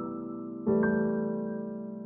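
Background piano music: sustained keyboard notes, with a new chord struck about two-thirds of a second in and a higher note just after, left to ring and fade slowly.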